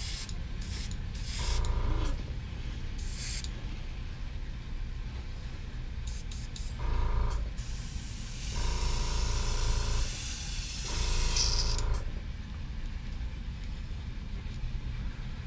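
Iwata airbrush spraying black paint in several short hissing bursts, the longest over a second, as the name "Bfudd" is written freehand; a steady low hum runs underneath.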